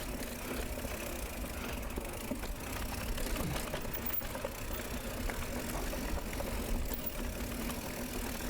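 Mountain bike rolling down a rough dirt trail: a steady rumble of tyres and wind on the microphone, with small clicks and rattles from the bike.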